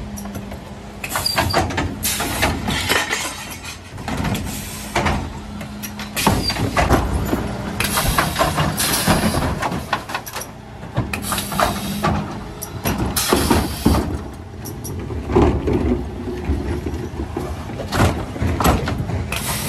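Mercedes Econic refuse truck with a Faun Variopress body emptying wheelie bins on its Zoeller rear lifters: a steady hydraulic hum comes and goes over the running engine, with repeated clatter and bangs as the plastic bins are tipped and rubbish drops into the hopper.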